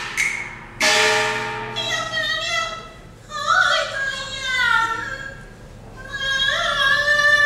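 Cantonese opera singing with instrumental accompaniment: a singer draws out long, wavering notes, with a sharp bright accent about a second in and a held note near the end.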